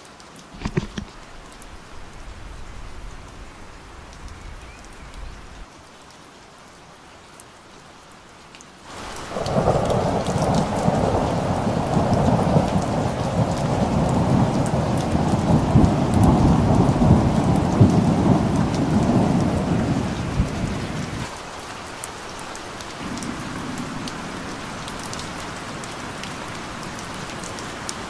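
Rain falling, with a long rumble of thunder that swells about nine seconds in and dies away some twelve seconds later, leaving the steady patter of rain.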